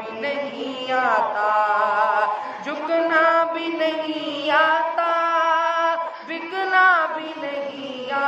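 A boy's solo voice singing unaccompanied into a microphone, holding long notes with wavering, ornamented pitch and pausing briefly for breath.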